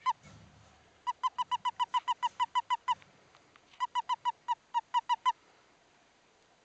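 A western toad chirping while held in the hand: two runs of rapid, high, evenly spaced chirps, about six a second, with a short pause between them. This is the release call a male toad gives when grasped.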